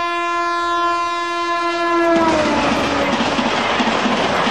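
Train horn sound effect: one long held note whose pitch drops a little over two seconds in, as the loud noise of a train running past takes over.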